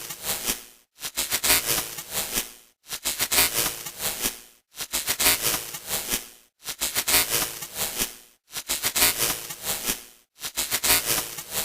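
Crackling, hissing static of a broken TV's glitch sound effect, repeating in bursts of just under two seconds, each fading away into a brief silence before the next begins.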